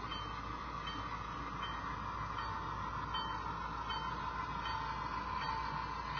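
Model railroad diesel locomotive with onboard sound running slowly past: a steady engine drone with its locomotive bell ringing about once every three-quarters of a second.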